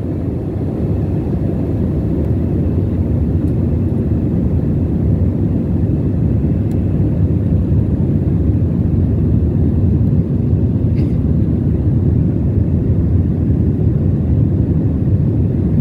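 Steady low rumble of jet engines and rushing air inside the passenger cabin of an Airbus A320 airliner in flight, heard from a window seat over the wing.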